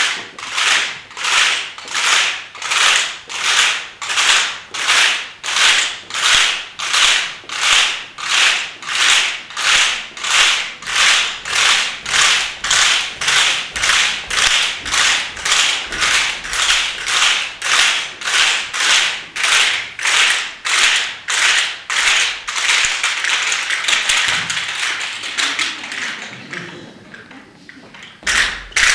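Bundles of long, thin, flexible strips swung through the air in unison, making a rhythmic swish about three times every two seconds. Near the end the swishes run together into one rushing sound that fades away.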